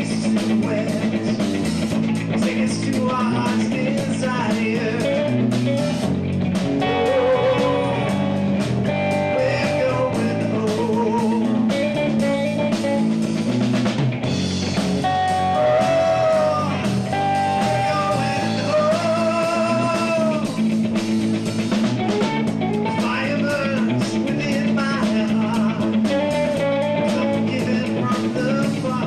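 Live rock trio playing: electric guitar, bass guitar and drum kit together, with a wavering melody line that bends in pitch over the band.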